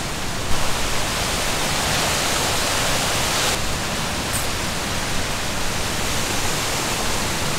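Steady hiss of rain falling, a little brighter from about two to three and a half seconds in.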